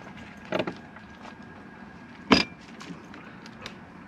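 A screwdriver working at the screws of an RV door lock: a short scrape about half a second in, then one sharp metallic clank a little past two seconds.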